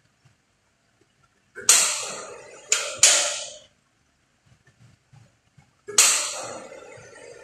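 Sharp metallic clanks of metal striking metal: three in quick succession, then one more near the end that rings on longest.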